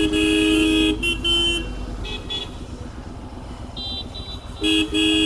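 A two-tone vehicle horn honks over the low running of a motorcycle engine. It gives a blast of about a second, then a few short taps, a higher beep about four seconds in, and a final blast of under a second near the end.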